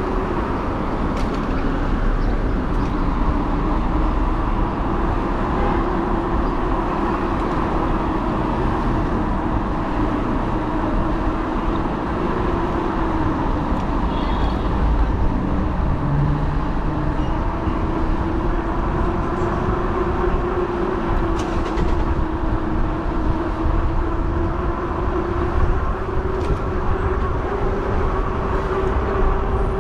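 Riding noise from a fat-tire e-bike: wind rumbling on the microphone and a steady hum from the bike whose pitch drifts slightly up and down with speed.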